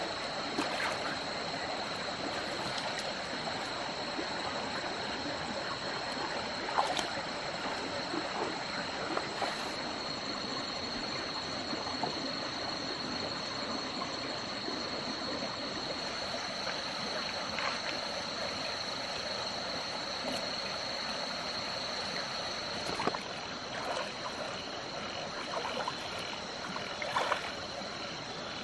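Rocky forest stream flowing and trickling, with a steady high-pitched cricket trill over it. A few small splashes from hands and wading feet in the shallow water, one about seven seconds in and several near the end.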